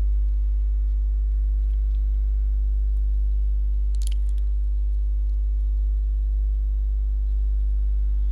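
Steady electrical mains hum at about 50 Hz with a few fainter overtones, unchanging throughout. A faint click about four seconds in.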